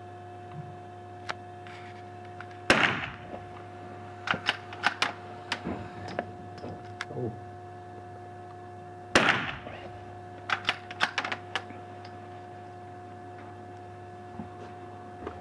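Two rifle shots about six and a half seconds apart, echoing briefly, each followed a second or two later by a run of sharp metallic clicks as the bolt is worked. A steady electrical hum runs underneath.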